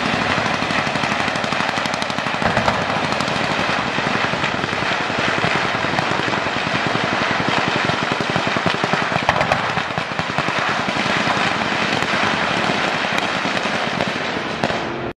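Dense gunfire: many overlapping shots crackling without a pause, too many to tell apart.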